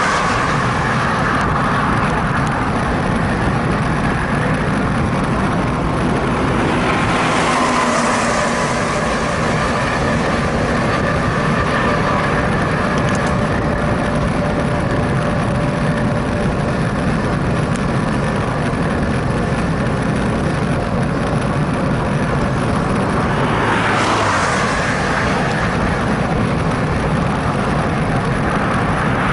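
Steady rush of wind and road noise at a handlebar-mounted camera on a bicycle riding along a highway shoulder. Cars pass in the next lane, swelling and fading about 8 seconds in and again about 24 seconds in.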